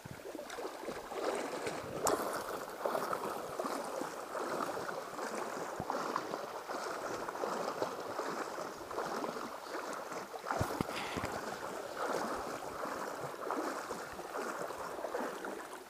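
River water lapping and sloshing close to the microphone, a steady churning with many small splashes.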